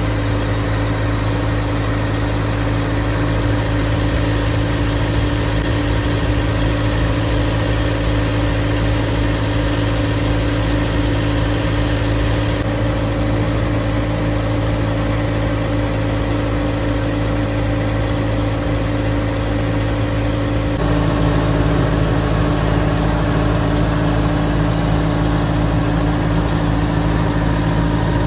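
An engine running steadily at close range with an even hum. Its tone shifts slightly about three-quarters of the way through.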